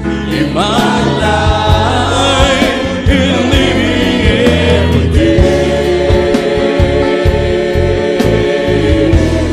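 Live church worship band playing a slow gospel song, with electric bass and electric guitars under singing voices; a flute joins near the end.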